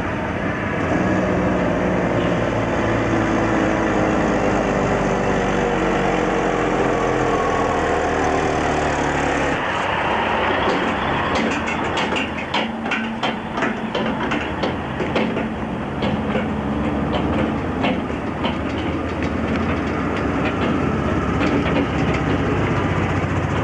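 Loaded diesel logging trucks passing on a highway: an engine running with its pitch slowly falling as the truck goes by, then, about ten seconds in, tyre rumble and a rapid clatter as a log trailer rolls past close by.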